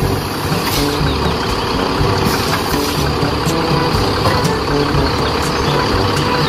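Truck engine idling with a steady rumble, with background music underneath.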